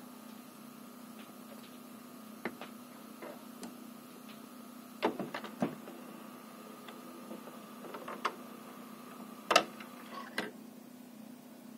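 Turntable tonearm mechanism clicking and knocking as the arm lifts off the record and swings away, with the loudest knock near the end, over a steady faint hum.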